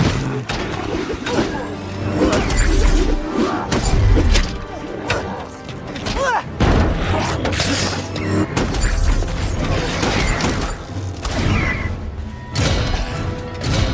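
Action-film battle soundtrack: orchestral score mixed with repeated crashes, shattering and booming impacts.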